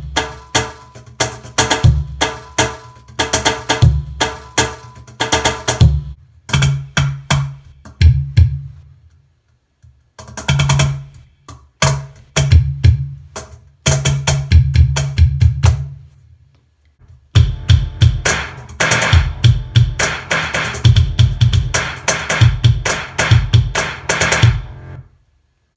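Cajon played by hand with its trigger firing the Roland EC-10M's electronic djembe kit through an amplifier: rhythmic patterns of deep bass strokes and sharp higher slaps. The playing stops briefly twice, around ten and seventeen seconds in.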